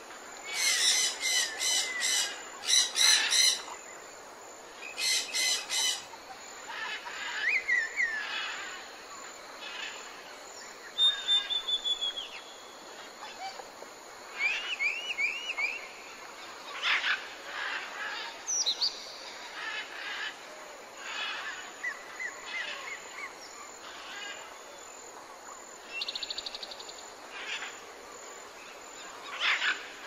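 Tropical forest birds calling: three loud bursts of rapid chattering in the first six seconds, then a mix of whistles, slurred chirps and short trills from several birds over a steady background hiss.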